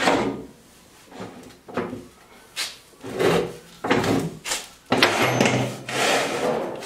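The two halves of a PowerMate L-1 stair-climbing hand truck being slid apart in a series of short scraping pushes, a longer scrape near the end.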